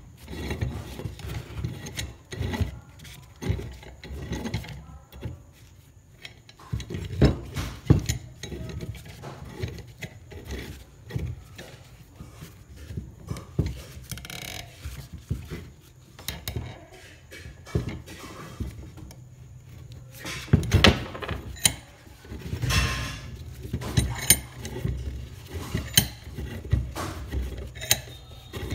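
Rusty steel screw of a C-clamp being turned by hand through the clamp's frame, its threads scraping and clicking irregularly, with a few sharper metal knocks against the wooden bench.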